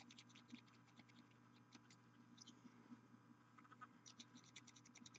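Faint scratching of a paintbrush's bristles dry-brushing a painted miniature, a quick run of short strokes that grows dense about four seconds in.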